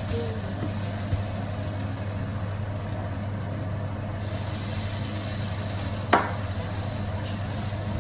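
Onions frying in a pan with a steady low hum underneath, and a sharp knock about six seconds in, the loudest moment.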